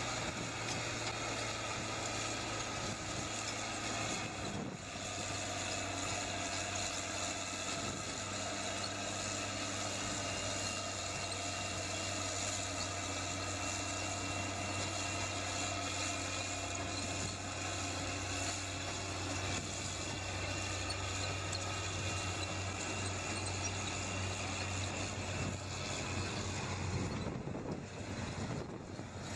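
Diesel engines of Caterpillar wheel-tractor scrapers running steadily as they work the dirt: a steady low engine drone under a broad even hiss.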